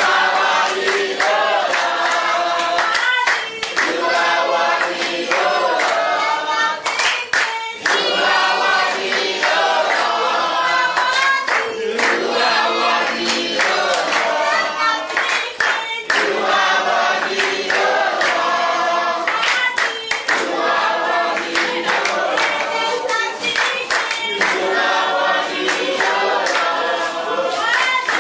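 A group of voices singing together in chorus, with hand-clapping along to the song.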